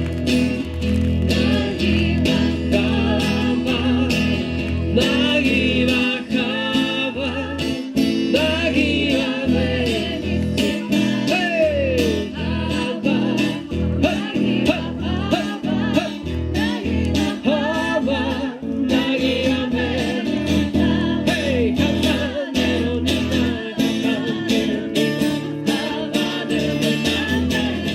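Group of voices singing along to strummed acoustic guitar at a brisk, steady beat.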